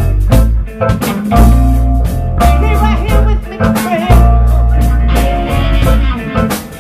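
Live band playing loud amplified music: drums keeping a steady beat over heavy bass, with keyboards and electric guitar.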